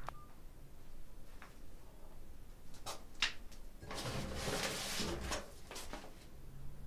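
Handling at a high cupboard: a few sharp clicks and knocks, then about two seconds of rummaging and rustling among its contents, with more knocks.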